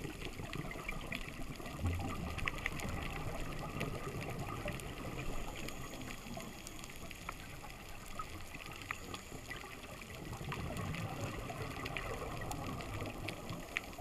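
Underwater reef sound picked up by a diver's camera: a steady rushing water noise over a low rumble, with scattered sharp clicks throughout. It swells twice, about two seconds in and again after ten seconds.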